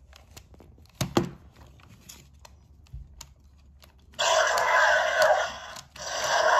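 Jurassic World Carnotaurus toy handled with a few faint plastic clicks, then its recorded roar plays loudly through the toy's small speaker about four seconds in; a second roar starts near the end.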